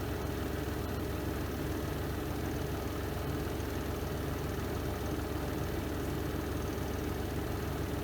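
Spin drum of a Renova semi-automatic twin-tub washing machine running steadily on the spin cycle: a constant low mechanical hum with a fast, even flutter.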